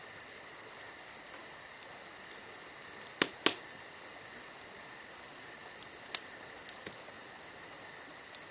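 Faint, steady insect chirping with a pulse of about four a second. A few sharp clicks cut through it, the loudest two close together a little after three seconds in.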